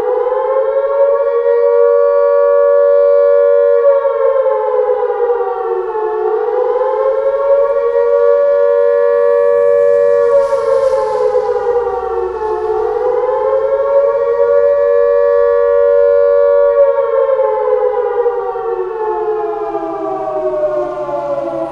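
LRAD DS-60XL speaker array sounding a synthesized Carter/Castle Castings-style siren tone on the attack signal, the civil-defense alert. It wails up and down: each cycle climbs, holds at the top for a few seconds, then slides down, repeating about every six and a half seconds. The last fall is long and drawn out near the end.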